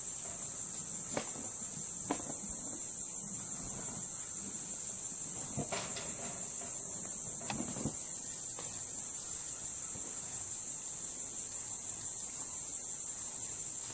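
Steady, high-pitched chorus of insects, such as crickets, droning without a break in the field, with a few faint clicks or knocks now and then.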